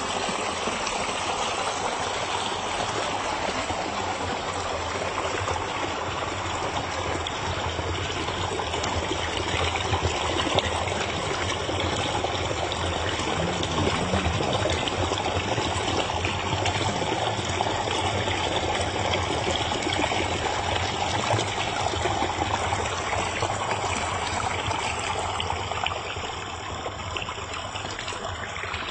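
Gentle forest stream flowing and trickling steadily.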